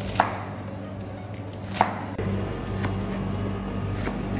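Chef's knife chopping choy sum and onion on a plastic cutting board: about four separate strokes a second or more apart, the first two sharp knocks with a brief ring.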